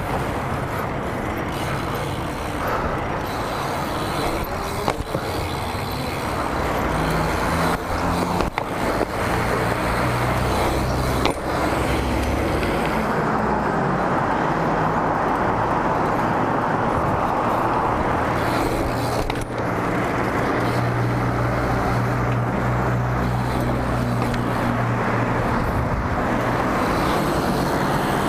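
BMX bike ridden along an asphalt street: steady wind and tyre rolling noise, with a few short knocks from bumps. A low engine hum of road traffic joins about ten seconds in.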